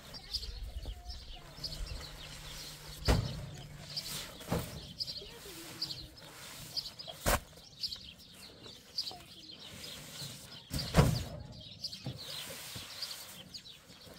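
Heavy paper sacks of cement being heaved onto and stacked in a pickup truck's bed: a handful of sharp thuds, the loudest about eleven seconds in. Small birds chirp throughout.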